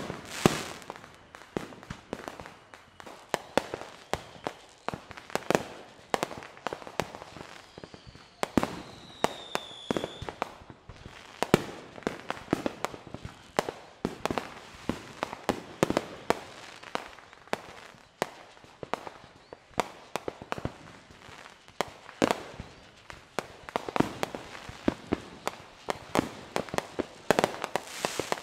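Fireworks going off in a continuous barrage: many bangs and crackling pops in quick succession, with a whistle falling in pitch about nine seconds in.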